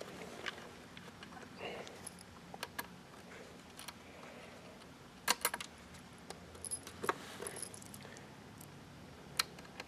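Faint scattered clicks and ticks of fingers turning the rear screws into the plastic case of a Synology DS215j NAS, with a handful of sharper clicks a second or so apart.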